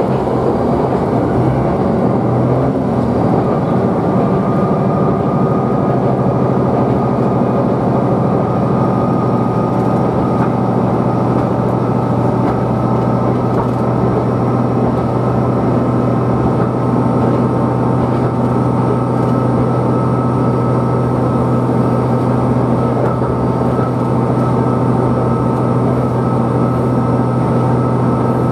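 Tsugaru Railway diesel railcar running at speed, heard from inside the cabin: a steady engine drone with a constant hum and rail running noise.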